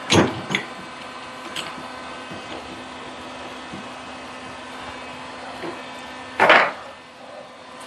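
Harbor Freight mini lathe running with a steady motor hum, broken by a few sharp knocks of metal tooling, the loudest about six and a half seconds in.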